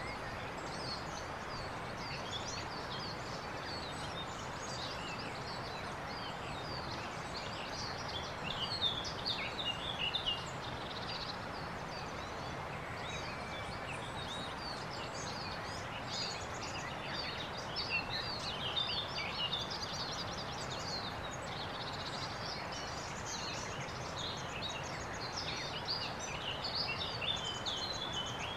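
Songbirds singing in short, twittering phrases that come in several loose bouts, over a steady outdoor background hiss.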